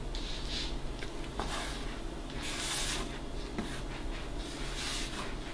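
Soft rubbing and brushing of a plastic mixing bowl held upside down over a flour-covered countertop as wet ciabatta dough slowly slides out of it. A few faint clicks, and a low steady hum underneath.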